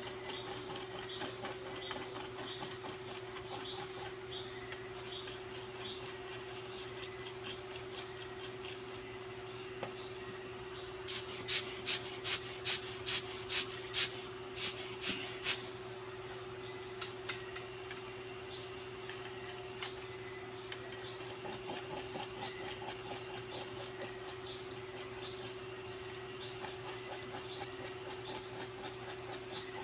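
Small brush scrubbing watch movement parts in liquid in a metal tin, with faint soft ticks over a steady hum and hiss. Around the middle comes a quick run of about ten sharp clicks, roughly two a second, the loudest sound here.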